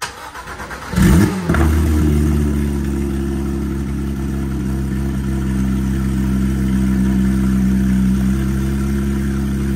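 Porsche 911 GT3's flat-six started through a freshly fitted Akrapovic full titanium exhaust with the rear bumper off: it catches about a second in with a loud rev flare, then settles into a steady idle.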